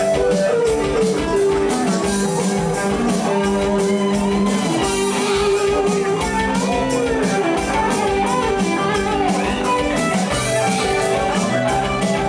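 A live band playing in a bar: electric guitar over a steady drum beat.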